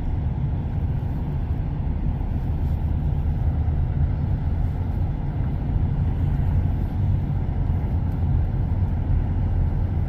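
Steady low rumble of a car driving, heard from inside the cabin: engine and tyre road noise.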